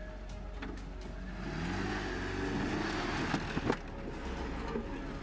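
Small car's engine revving up and down while driving over rough off-road ground, with a rush of tyre and ground noise through the middle and a few sharp knocks a little past halfway.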